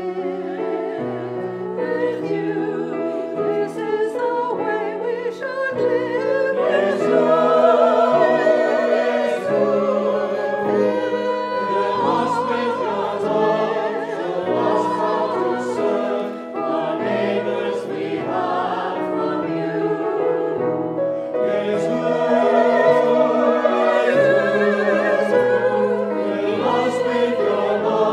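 Small mixed church choir of men's and women's voices singing with grand piano accompaniment, the voices carrying vibrato and swelling louder twice.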